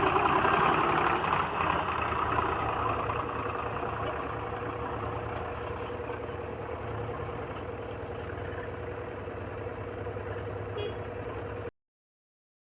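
Heavy diesel engine running steadily, getting somewhat quieter over the first few seconds, then cutting off suddenly near the end.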